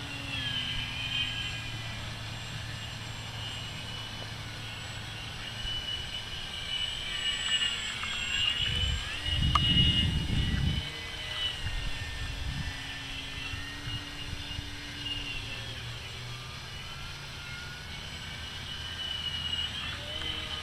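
Radio-controlled model plane's motor and propeller whining in flight, the pitch wavering up and down as it flies around. About halfway through comes a louder low rumble lasting about two seconds.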